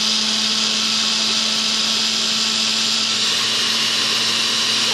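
Osterizer 10-speed blender running steadily, whirring a liquid smoothie of fruit, kale, yogurt and apple juice. It holds one even motor pitch throughout, over a dense hiss.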